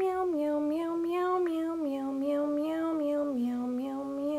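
A voice humming or singing a wordless tune, holding notes and stepping from one to the next without a break, drifting lower overall.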